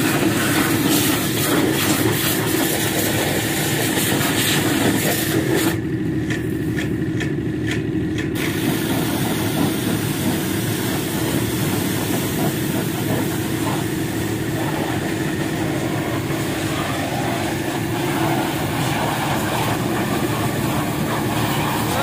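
Pressure washer running, its jet hissing steadily against a forklift's metal body over the steady hum of the washer's motor and pump. About six seconds in, the spray hiss drops out for about two seconds, then resumes.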